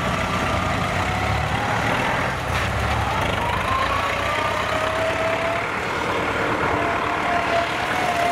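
Engine of a tracked rice-hauling carrier running steadily as it drives past loaded with sacks of rice, with a thin whine above the engine that drifts slowly up and down in pitch.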